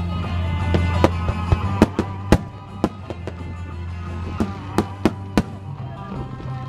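Starmine fireworks bursting in quick sharp cracks, about a dozen of them, the loudest about two seconds in, over music played for the display.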